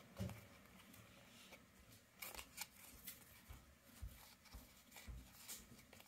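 Faint soft clicks and rustles of a stack of basketball trading cards being flipped through in the hands, the cards sliding and tapping against one another in short, irregular strokes.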